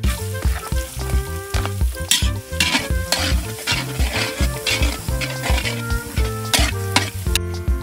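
Chopped onion hitting hot oil in a large iron wok and sizzling, while a long metal spatula scrapes and stirs it in repeated strokes against the wok. The sizzling stops suddenly near the end, with background music underneath throughout.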